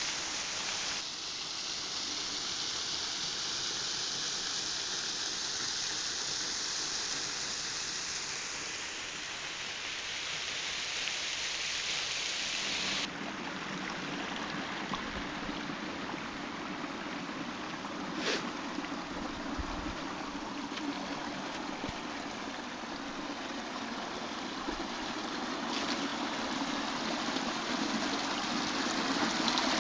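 Water of a small waterfall and creek rushing and splashing steadily. The sound changes abruptly a few times, as between shots, and there is one brief click partway through.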